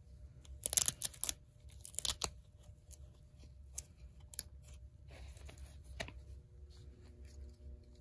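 Hook-and-loop strip on a plush toy dog's belly flap being ripped open, in two short tearing pulls about a second apart, followed by a few light clicks and rustles of handling.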